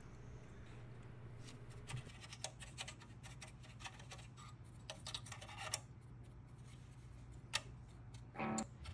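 Faint scratching and light tapping of a small paintbrush working dry weathering pigment onto the plastic hull side and suspension of a model tank, in scattered irregular strokes.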